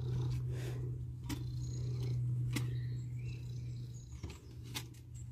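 Ginger cat purring steadily while being scratched behind the ear, with a few light clicks.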